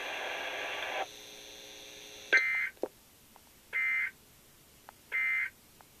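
NOAA Weather Radio receiver playing the end of a weekly test: a steady hum of the broadcast that cuts off about a second in, then three short bursts of digital data tones about a second and a half apart, the SAME end-of-message code that closes an alert. The first burst is the loudest, and a few faint clicks fall between the bursts.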